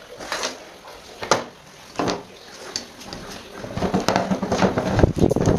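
Parts of an old Miyako fan motor and its wiring being handled and taken apart on a wooden workbench: scattered separate clicks and knocks, then from about four seconds in a fast, continuous rattling scrape that grows louder.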